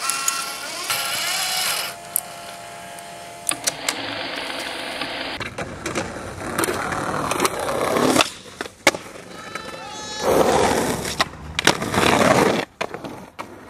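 Skateboard wheels rolling on concrete, broken by several sharp clacks of the board popping and landing.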